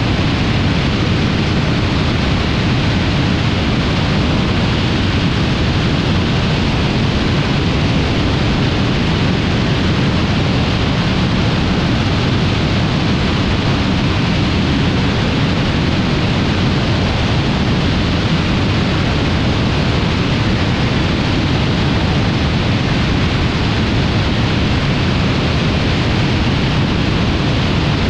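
Steady loud rush of airflow over a wing-mounted camera on a BRM Citius ultralight in cruise flight, with the aircraft's engine and propeller noise blended into it.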